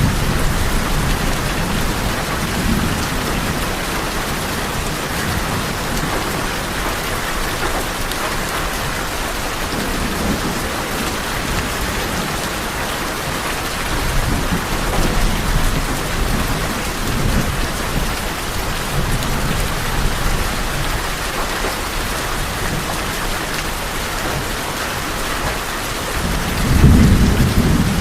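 Steady rain falling on a tin roof, with low rolls of thunder swelling now and then, the loudest just before the end.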